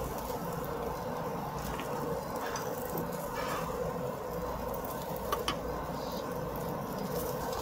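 Eel and shellfish sizzling on a tabletop grill over a steady hum, with a couple of light clicks of metal tongs a little past the middle.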